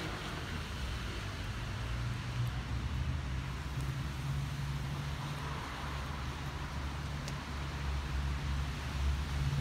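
Steady low rumble of road traffic with an even hiss over it, no single vehicle standing out.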